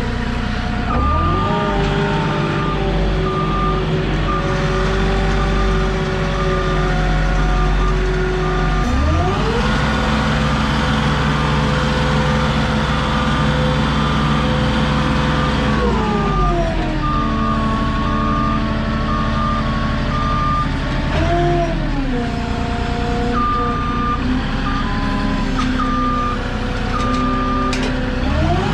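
Moffett truck-mounted forklift's diesel engine running, its revs rising and falling several times as it manoeuvres. Its reverse alarm beeps in long stretches over the engine.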